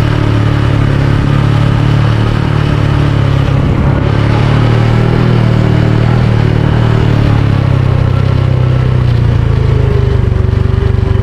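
Small motorcycle engine running steadily while being ridden, a constant low drone.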